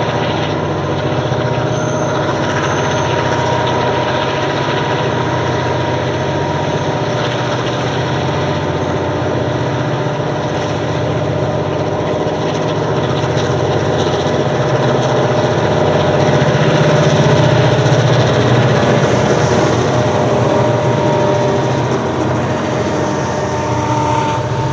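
Diesel locomotives CLF2, 4908 and CLP9 hauling a loaded grain train past, a steady engine drone with a constant whine over it, loudest about two-thirds of the way through as the locomotives go by. Near the end the grain hopper wagons are rolling past.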